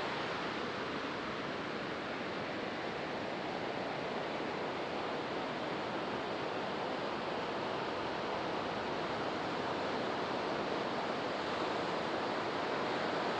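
Ocean surf breaking and washing onto a beach: a steady, even rush of water with no single wave standing out.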